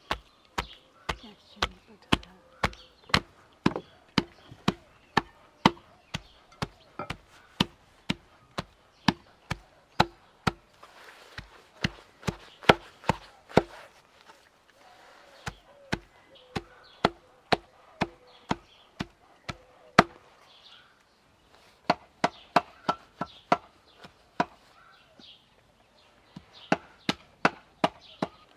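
A cleaver chopping raw meat on a wooden block, mincing it by hand in steady strokes about two a second, with a couple of short pauses.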